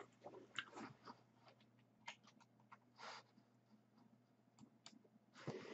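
Near silence: faint room hum with a few soft clicks and a short soft hiss about three seconds in.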